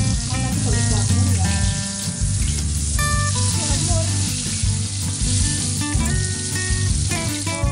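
Food frying in hot oil with a steady sizzle, a metal spatula stirring in a wok, over background music.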